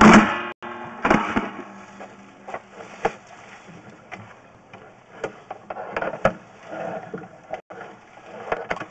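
Sewer inspection camera and its push cable being fed along a PVC drain line, making irregular clicks and knocks, a few of them louder, about a second, three seconds and six seconds in.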